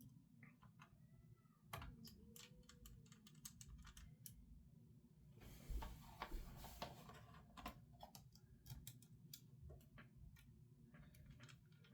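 Faint scattered clicks and light metallic taps of small screws and a screwdriver being worked on a graphics card's cooler and shroud, with a brief rustle of handling about halfway through.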